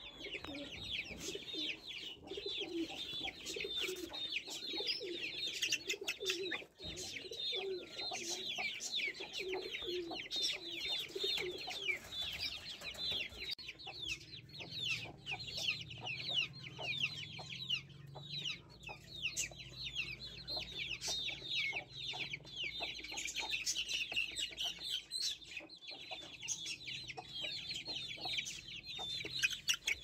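Chicks peeping in a steady stream of quick, high, falling chirps, with a hen's lower clucking underneath for the first dozen seconds or so. A faint low hum joins about halfway through.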